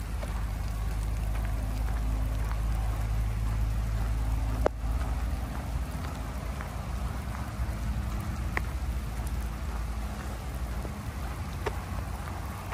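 Steady low rumble of wheels rolling over coarse asphalt, with a few sharp ticks and one louder knock about five seconds in.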